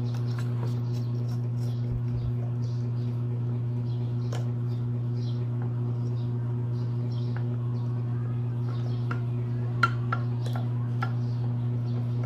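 Light clicks and taps of metal scooter fork parts and tools being handled over a steady low hum, with a couple of sharper clicks about ten seconds in.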